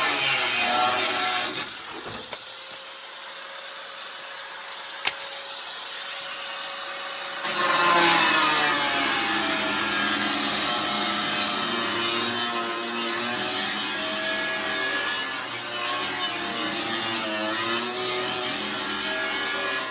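Power tool cutting sheet steel on a pickup's bedside panel. It cuts loudly for the first couple of seconds, runs lighter and quieter with a steady hum for several seconds, then bites into the metal again from about seven seconds in with a loud rasping cut and wavering screechy tones.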